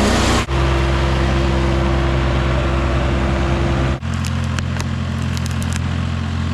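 A gas engine running steadily, heard in three short clips cut together. In the last clip there is a run of sharp cracks over the engine.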